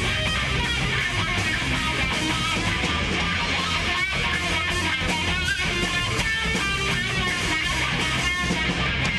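A live rock band playing, with electric guitar and electric bass guitar.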